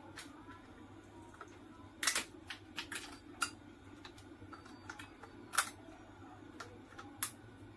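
Irregular sharp clicks and snaps of nickel strips being pried and torn off the lithium-ion cells inside a DeWalt power-tool battery pack with a hand tool, the two loudest snaps about two seconds and five and a half seconds in. A faint steady low hum runs underneath.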